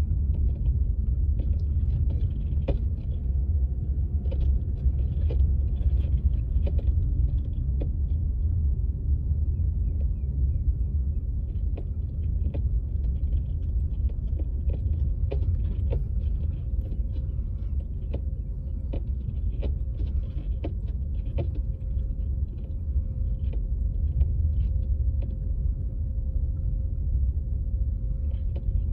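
Car driving slowly: a steady low rumble of tyres and engine, with many small scattered ticks and clicks throughout.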